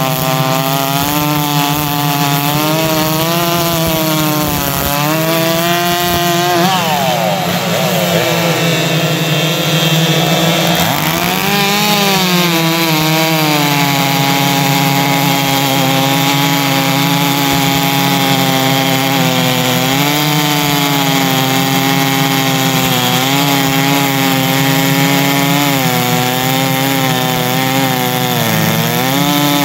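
Several two-stroke chainsaws running flat out together under load, ripping logs lengthwise, their engine notes overlapping and wavering as the chains bite. About a quarter of the way in one saw's pitch drops sharply and climbs back up.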